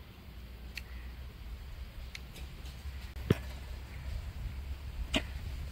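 Small sharp clicks and taps of a GoPro Hero 9 Black camera and its protective case being handled, four in all, the sharpest about three seconds in, over a low steady rumble.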